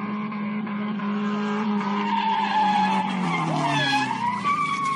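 A car drifting on asphalt, its tyres squealing in wavering high tones over the engine held at high revs. The engine note falls about three seconds in.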